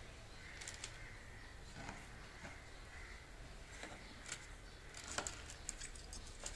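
Quiet handling sounds: a few soft clicks and taps as chicken seekh kababs are laid on butter paper in a plastic container.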